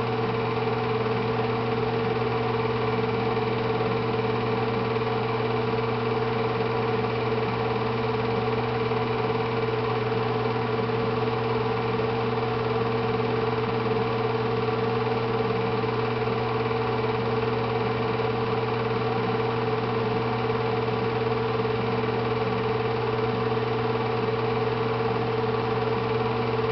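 Heavy engine running at a steady, unchanging speed: a constant low hum with no revving, no pauses and no knocks.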